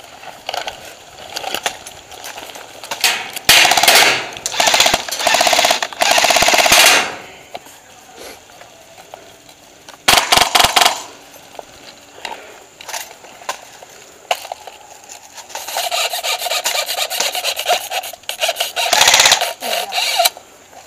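Airsoft electric guns firing full-auto bursts, a rapid rattle of shots over a gearbox whir. There is a long burst from about three and a half seconds to seven, a short one around ten seconds, and more firing from about fifteen seconds to near the end.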